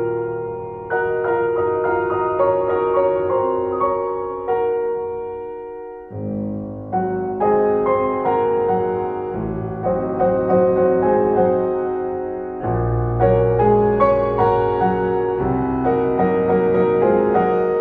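Background piano music: struck notes and chords at an unhurried pace, with deeper bass notes joining about halfway through.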